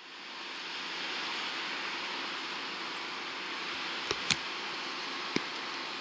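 Steady rushing airport noise, like distant jet engines, fading in at the start. Three sharp clicks sound, two close together about four seconds in and one about a second later.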